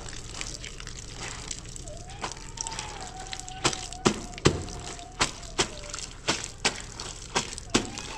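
Water running from a tap onto a cloth being hand-washed, scrubbed and squeezed. From about halfway in come sharp wet slaps and squelches of the fabric, roughly one or two a second.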